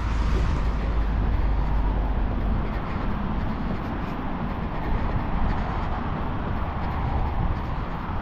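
Steady outdoor noise like road traffic, with a low wind rumble on the microphone that is heaviest in the first few seconds and then eases.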